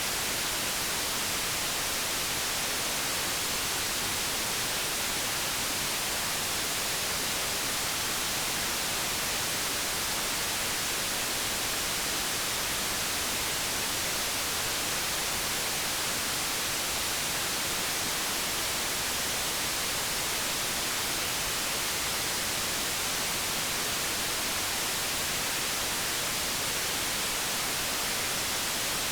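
White noise: a steady, even hiss that holds the same level throughout.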